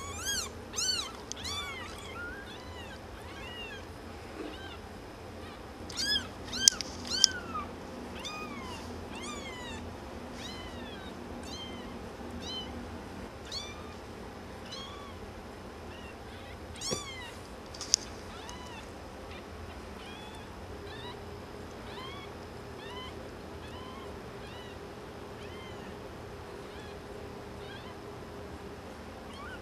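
Very young kittens mewing: many short, high, thin mews, each rising and falling in pitch, come thick in the first eight seconds and more sparsely after. A single sharp click sounds about two-thirds of the way through.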